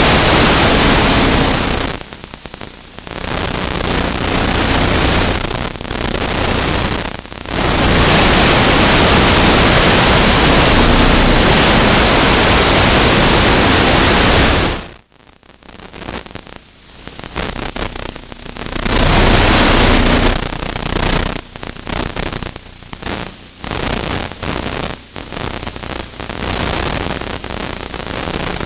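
Loud, even static hiss over the recording, with no distinct sounds in it. It cuts out sharply about halfway through, then comes back choppy and broken.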